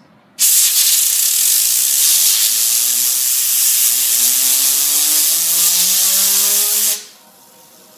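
Compressed air from an air compressor hose blasting a fidget spinner: a loud, steady hiss that starts half a second in and cuts off suddenly about a second before the end, with a fainter whine underneath that slowly rises in pitch as the spinner speeds up.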